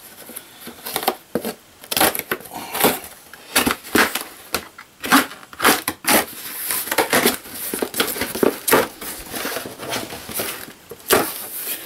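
Packing tape torn and peeled off a large cardboard shipping box, then the cardboard flaps pulled open: a run of irregular rips, scrapes and crinkles.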